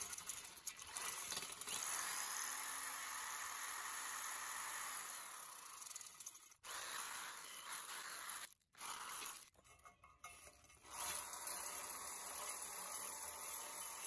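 Cordless drill spinning an abrasive attachment against the rusty steel shovel blade, a steady scratchy hiss as the rust is scoured off. It stops briefly about six and a half seconds in, drops away again from about nine and a half to eleven seconds, then resumes.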